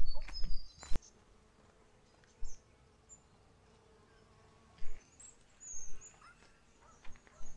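An insect buzzing faintly with a steady hum for a few seconds. A few low thumps from the camera being handled and carried come before it, in the first second, and are the loudest thing.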